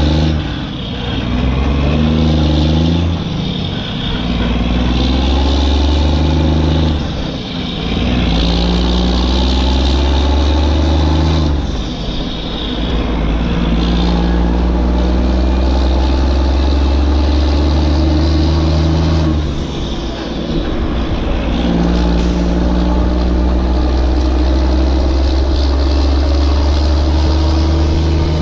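Truck engine sound effect, running and revving in long surges of several seconds each, dipping briefly between them. It is dubbed over a plastic toy dump truck that has no motor of its own.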